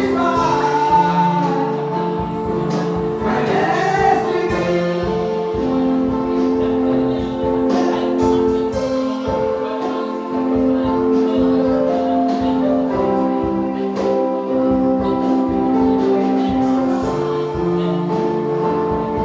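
Gospel music: singing over sustained keyboard chords with a steady percussion beat.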